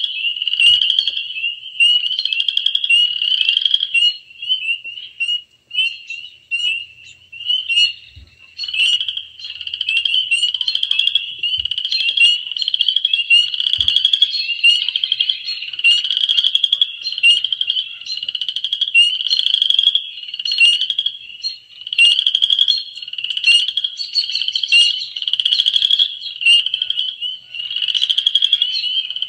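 A chorus of many frogs calling together, a dense high-pitched mass of overlapping pulsed calls that never lets up.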